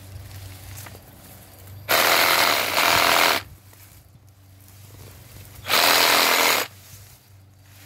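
Handheld power tool run in two short bursts, the first about a second and a half long and the second about a second, hammering a rod pushed into a haskap bush to shake the branches and knock the ripe berries loose.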